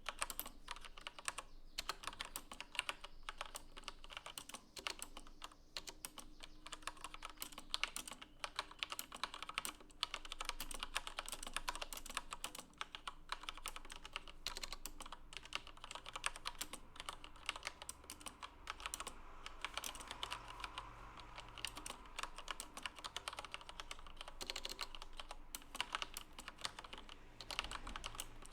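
Corsair K63 mechanical keyboard with Cherry MX Red linear switches being typed on quickly: a dense, continuous run of key clacks.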